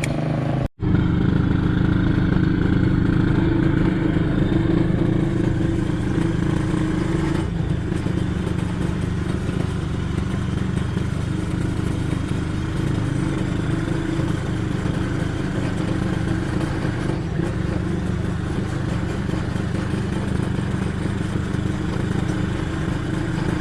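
Engine of a small beach ATV running steadily while being ridden, with a slight shift in tone about seven seconds in. The sound drops out for an instant under a second in.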